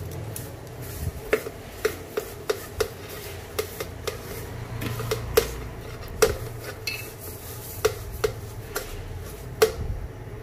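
Stainless steel plate clinking and tapping against the rim of a steel mixer-grinder jar as roasted sesame seeds and curry leaves are scraped off it into the jar: about a dozen irregular light metallic clinks over a low hum.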